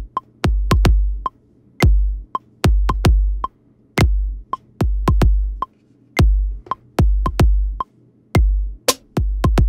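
Sampled electronic kick drum ('Kick Straight 1') in Maschine, finger-drummed live into a pattern as it records. Each hit is a deep thud whose pitch drops into a long low tail, in a loose rhythm. A software metronome clicks steadily on every beat at 110 BPM, just under two clicks a second.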